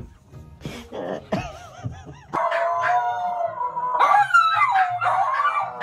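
A dog howling: a few short yips, then from about two seconds in one long, loud howl whose pitch wavers and climbs toward the end.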